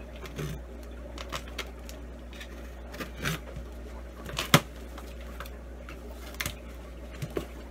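Scissors cutting packing tape on a cardboard shipping box, with the flaps being pried and pulled open: scattered snips, scrapes and cardboard rustles, and one sharp snap a little past halfway.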